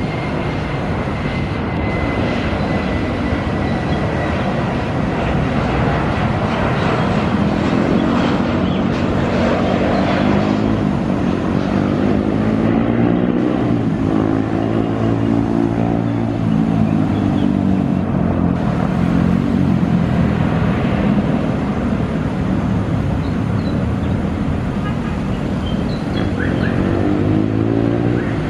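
Boeing 737 airliner's jet engines running as the plane passes on landing, a steady loud rush whose low tones sweep up and down in pitch, with a thin high whine in the first few seconds.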